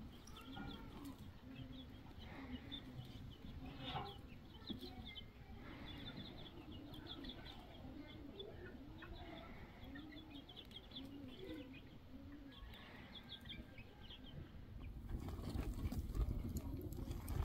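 Domestic hens clucking softly and repeatedly while their chicks peep in high, thin chirps as the flock forages. Near the end a louder, noisy crackle takes over.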